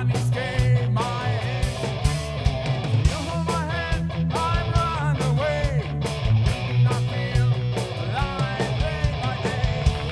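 Rock band playing live: two electric guitars, bass guitar and a drum kit, all recorded together as they sound in the room. The drums hit steadily over a heavy bass line.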